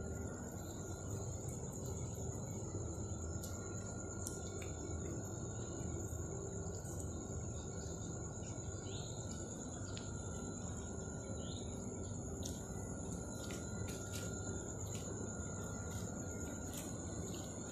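Crickets trilling steadily in a high, continuous tone over a low steady background rumble, with scattered faint clicks and a few short chirps.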